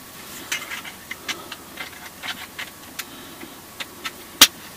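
Irregular light clicks and ticks of a dog harness's buckles and straps being handled and fastened, with one sharper click about four and a half seconds in.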